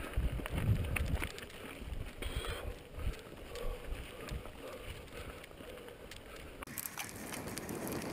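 Mountain bike rolling down rocky singletrack: scattered knocks and rattles from the tyres and bike over loose rock, with wind rumbling on the helmet microphone, heaviest in the first second or so.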